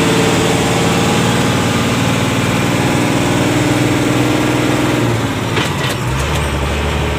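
Truck's diesel engine running, heard from inside the cab. A little over five seconds in there are a few sharp clicks, and the engine note shifts to a lower, steadier drone.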